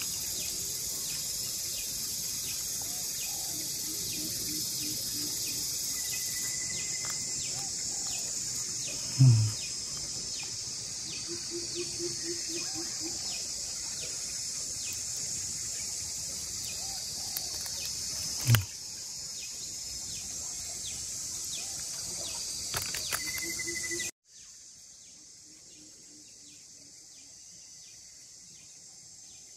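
Steady high-pitched insect chorus, with short runs of low pulsing calls and a few brief chirps. Two loud thumps come about 9 and 18 seconds in. About 24 seconds in the sound cuts off suddenly to a much quieter background.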